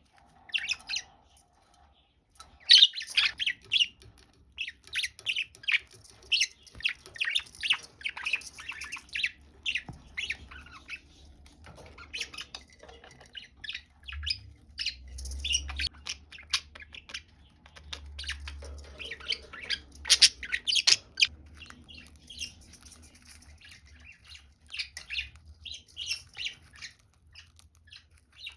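Budgerigars chirping and chattering: a busy run of quick, short, high calls, with brief lulls between bursts.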